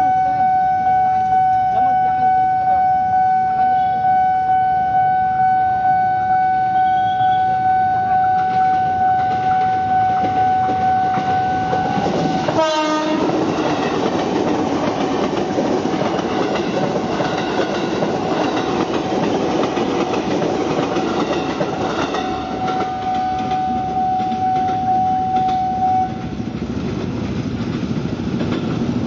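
A level-crossing warning bell rings as one steady pitched tone pulsing in a quick, even rhythm. About halfway through, an electric commuter train passes with loud rumbling and wheels clattering over the rail joints. The bell is heard again until it stops shortly before the end.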